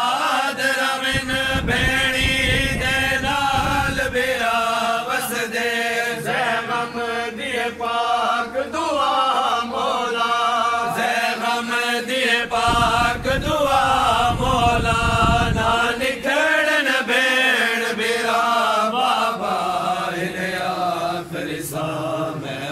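Men's voices chanting a mourning lament (noha) without instruments, the lines drawn out in long, wavering held notes.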